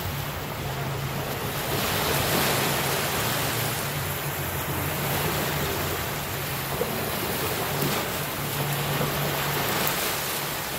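Ocean surf washing in on a shore in a continuous noisy wash that swells about two seconds in, with wind rumbling on the microphone.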